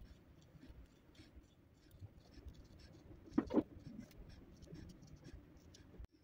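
Felt-tip marker scratching across paper in short colouring strokes, with two brief louder knocks close together about halfway through.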